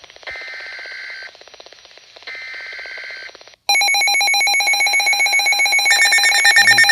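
Emergency Alert System broadcast: two buzzy bursts of SAME header data tones, each about a second long, then a loud, steady EAS attention tone that starts about three and a half seconds in and grows fuller near the end.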